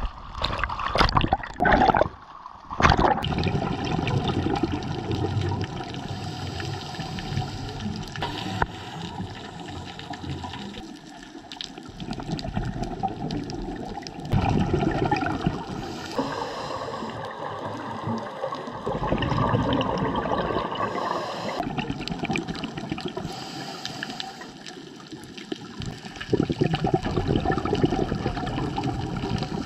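Splashing as the camera goes into the sea, then underwater gurgling and bubbling that swells and fades every few seconds, typical of a scuba diver's regulator exhalations.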